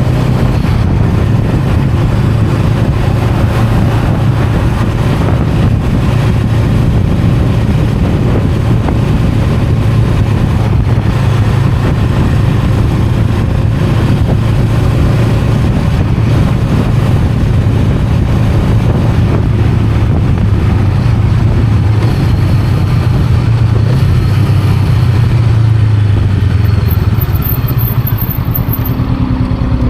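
Honda Rebel 500's 471 cc parallel-twin engine running at a steady engine speed while the motorcycle is ridden, with a constant rush of wind and road noise.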